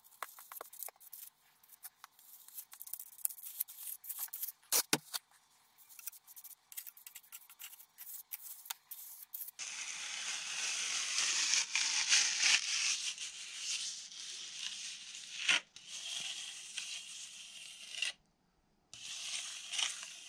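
Steel Japanese plastering trowel scraping across wet lime putty render, pressing and smoothing it onto a wall. Short separate scrapes and taps at first, then from about ten seconds in longer, continuous scraping strokes, broken by a brief pause near the end.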